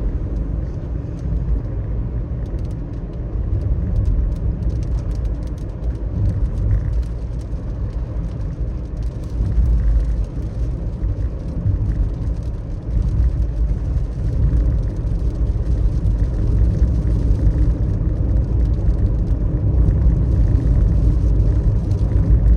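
Car driving in the rain: a steady low rumble of engine and tyres on a wet road, with faint scattered ticks of raindrops.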